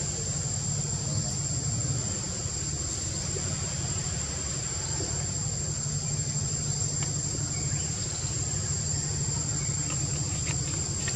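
Steady high-pitched drone of insects calling without a break, over a low steady rumble.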